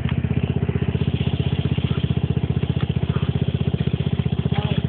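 ATV engine running at a steady speed, an even rapid chugging with no revving.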